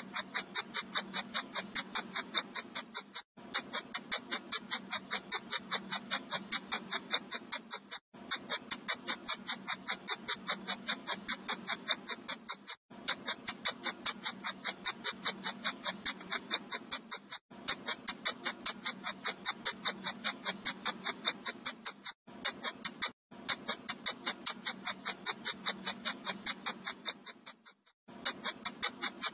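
Electronic mosquito-repellent sound: a rapid train of short, high-pitched pulses, about seven a second. The pulses come in stretches of about four to five seconds, each broken by a brief gap.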